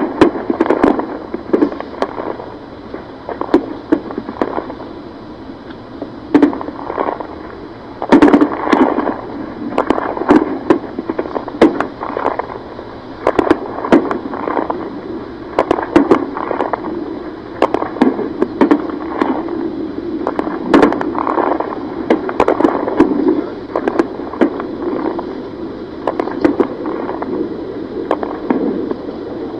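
Distant gunfire: irregular sharp cracks and pops, at times several a second, over steady background noise.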